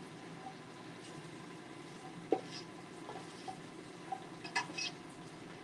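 Faint kitchen cooking sounds: a low steady hiss with a few light clicks of a utensil against cookware, about two seconds in and again near the end.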